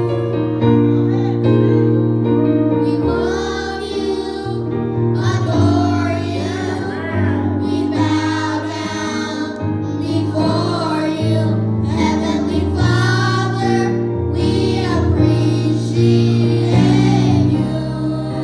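Gospel worship song: a singer holds notes with vibrato over sustained keyboard chords.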